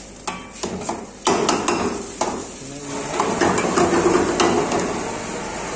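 A metal ladle knocking and scraping against a metal frying pan as a thick curry is stirred, with sizzling from the pan. Several sharp clinks come in the first two seconds, then the stirring goes on more steadily.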